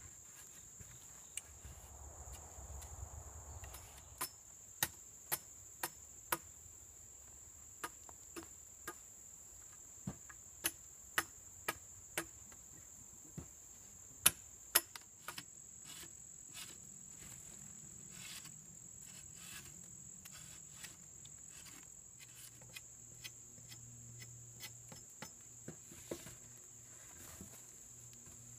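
Axe strikes on a sapling pole held against a log chopping block: sharp wooden knocks in short runs about two a second, the hardest pair about halfway through. A steady high insect drone goes on underneath.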